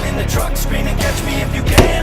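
Background rock music with a steady beat, with one loud, sharp gunshot near the end.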